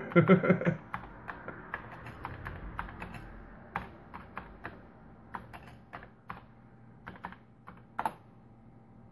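Commodore 64 keyboard being typed on one-handed: slow, uneven keystroke clacks, about two or three a second, with one louder stroke near the end.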